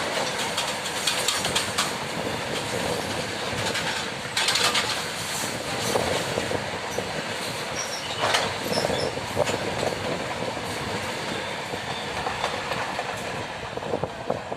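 Freight wagons rolling past at speed: a steady rumble of steel wheels on rail, broken by clacks over rail joints and a faint high wheel squeal. It eases off slightly near the end.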